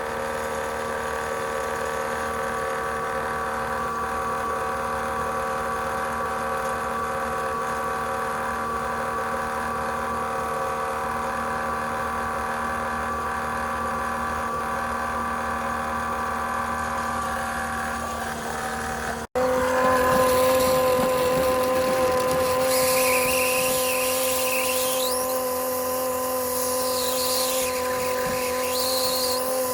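A small electric motor running with a steady whine of several fixed tones. It breaks off sharply about 19 seconds in and starts again at once. Irregular higher squeaks are heard over it in the second half.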